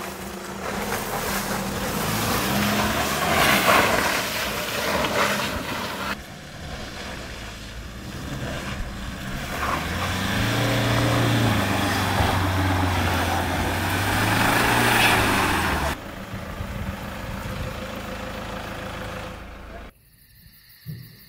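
Toyota SUV driving on a rough dirt track: engine running under a steady rush of tyre and road noise. The engine note swells about halfway through, and the sound drops away sharply near the end.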